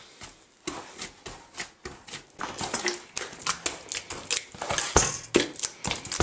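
Sweet bread dough being beaten by hand in a bowl: a run of slapping strokes, sparse at first, then quicker and louder from about halfway through.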